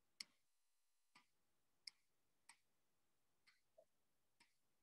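Near silence with about six faint computer mouse clicks at irregular intervals.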